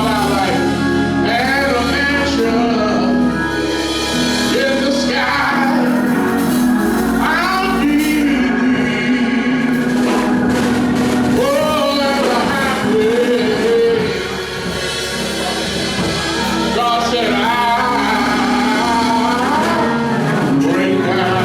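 Live gospel worship music: a voice singing long, sliding, drawn-out lines over a steady instrumental backing of sustained low notes.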